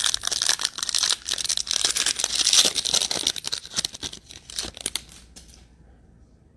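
A trading-card pack wrapper being torn open and crinkled by hand, a dense crackling that runs for about five seconds and then dies away.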